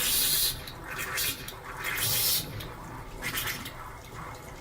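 Water spurting and gurgling from a tap in uneven gushes of hiss, the strongest at the start and about two seconds in.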